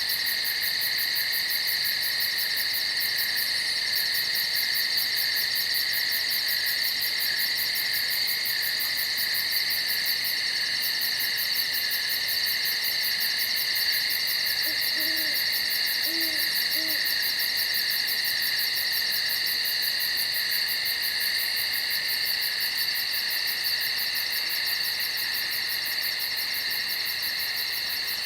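A steady, dense chorus of night insects trilling high. An owl hoots three short low notes about halfway through.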